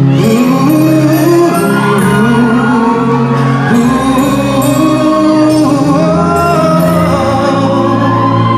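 Man singing a love ballad live into a handheld microphone over instrumental backing, his voice gliding through long held notes, with cymbal strokes above.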